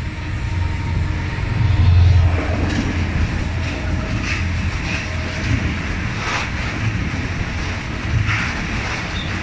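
Freight train passing close beneath: the Vossloh diesel locomotive's low engine rumble peaks about two seconds in as it goes under, then a string of tank wagons rolls by with wheel clacks over the rail joints about every two seconds.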